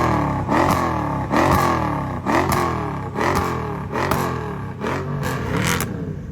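A Mercedes-AMG car's engine and exhaust being revved over and over in quick blips, each rising and falling, about one a second, with sharp pops or cracks from the exhaust between revs.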